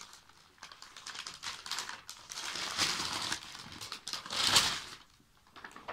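Paper being handled: rustling and light irregular clicks and scratches, with one louder rustle about four and a half seconds in.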